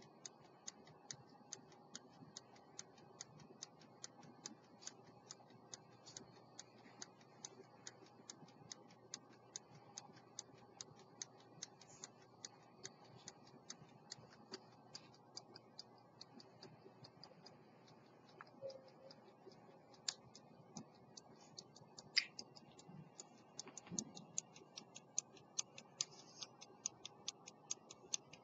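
Faint, steady, fast ticking of an 18th-century London silver verge-escapement fusee pocket watch running after its repair. A few louder clicks come in the second half.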